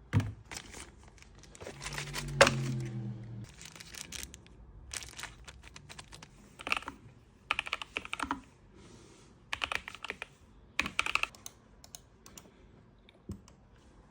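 Mechanical keyboard being typed on in irregular bursts of keystrokes with short pauses between them. A brief low hum is heard about two seconds in.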